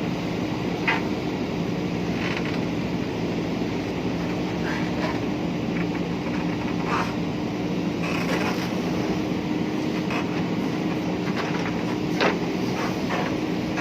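Diesel engine of a JCB 3DX backhoe loader running steadily at work, with a few brief clinks over it.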